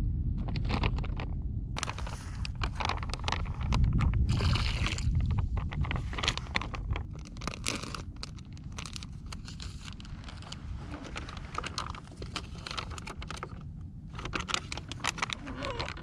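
Plastic food packaging crinkling and scraping in the hands as a self-heating meal pouch is opened and its heating-pad sachet is taken out and handled, with many irregular crackles.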